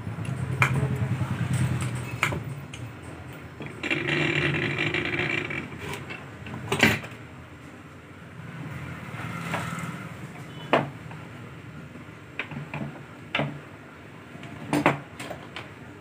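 Sharp metal clicks and clinks as parts are fitted into the top housing of a hand-cranked bel sharbat machine, with a short mechanical rattle about four seconds in. The sharpest clink comes a little before the middle.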